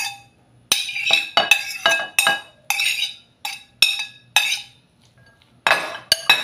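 Metal fork tapping and scraping against a plate and the rim of a glass bowl: a quick, uneven run of ringing clinks, about two or three a second, with a pause of about a second near the end.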